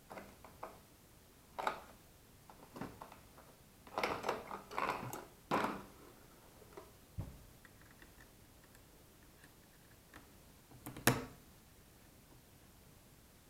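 Irregular clicks, knocks and rustles of something being handled, with a sharp knock about eleven seconds in. No siren is sounding.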